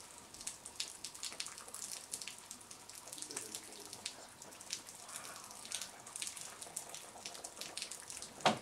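Water drops pattering irregularly, several short high ticks a second over a faint hiss, with one sharper knock near the end.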